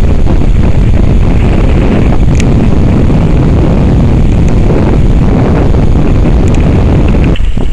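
Strong wind buffeting the camera's microphone: a loud, deep, steady rumble that cuts off suddenly near the end.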